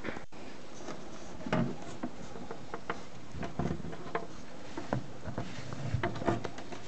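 Scattered small clicks and knocks over a steady background hiss. The clicks come thicker in the middle and later part.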